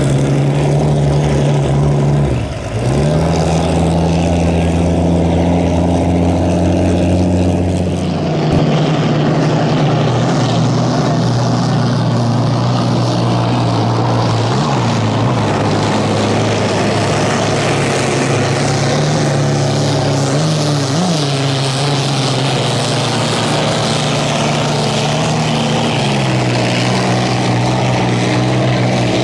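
Vintage racing hydroplanes' Allison V-12 aircraft engines running hard at speed: a loud, steady, deep engine drone under the hiss of spray. It changes abruptly about two and a half and eight seconds in, as one pass gives way to another.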